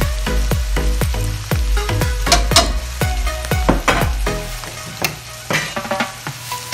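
Diced meat and vegetables sizzling in an aluminium wok as a metal spatula stirs and scrapes, with a few sharp scraping clicks in the middle. Background music with a steady beat of about two thumps a second plays underneath, and its deep thump drops out about two-thirds of the way through.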